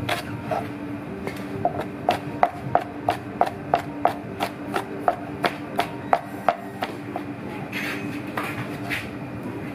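A large kitchen knife chopping and mincing a spice paste on a cutting board: rapid, even strikes of the blade on the board, about three a second. The chopping stops about seven seconds in, followed by a few softer cuts as a tomato is sliced.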